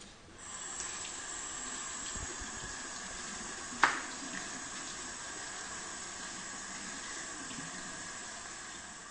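Lab sink tap running steadily, the stream splashing onto a piece of cardboard held under it to soak it. A single sharp knock about four seconds in.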